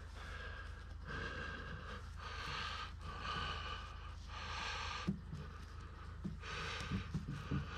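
A person breathing heavily and audibly, one breath sound after another about once a second, with a short pause about five seconds in. A steady low hum runs underneath.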